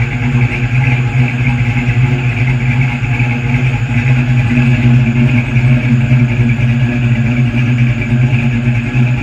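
Oldsmobile Cutlass's swapped-in 6.0-litre LS V8 idling steadily through its exhaust during warm-up after a cold start, with no revving.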